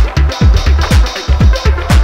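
Electronic background music with a steady beat: deep kick drums over a heavy bass line, with sharp hi-hat or clap hits.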